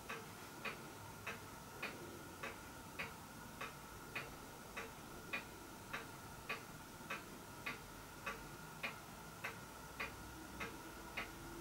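Faint, even clock-like ticking, a little under two ticks a second, over a faint steady high hum.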